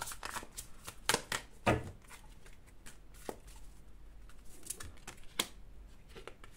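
Tarot cards being handled on a table: a few irregular soft clicks and light rustles, as cards are shifted and laid down.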